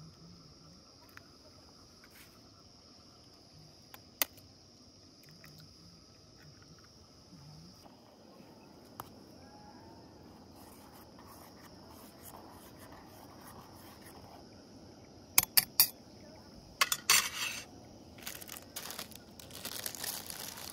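Crickets chirping steadily while a fork stirs in a metal camping pot, with three sharp taps on the pot about two-thirds through. Near the end, instant-noodle seasoning sachets crinkle and tear open.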